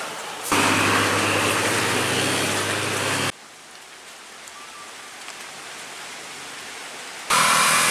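A truck engine running under heavy rain on a wet road. About three seconds in it cuts suddenly to softer, steady rain falling on a flooded road surface. Near the end the louder rain-and-engine noise returns.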